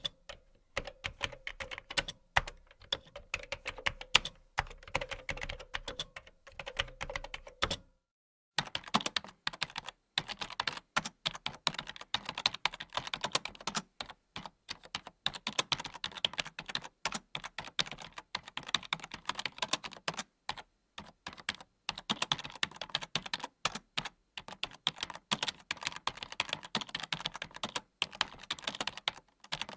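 Typing on a keyboard: quick, irregular key clicks. The clicking breaks off for about half a second some 8 seconds in, then carries on in a second take without the low hum heard under the first.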